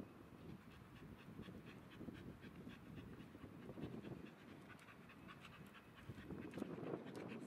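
A Soft Coated Wheaten Terrier panting faintly in quick, even breaths.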